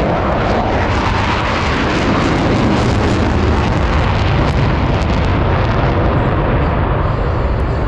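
Boeing F/A-18 Super Hornet jet engines passing at full power: a loud, steady jet roar with some crackle.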